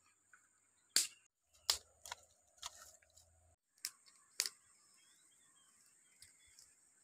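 Dry sticks and twigs snapping and knocking while a campfire is laid: about six sharp, irregular cracks, the loudest about a second in.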